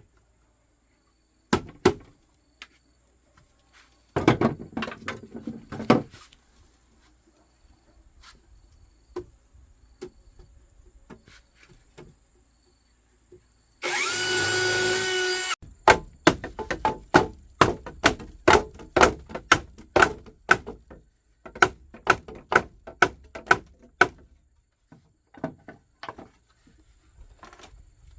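Tools working wood: scattered sharp strikes, a short stretch of dense scraping, then quick runs of strikes at about two or three a second. About halfway there is a steady high whine lasting under two seconds.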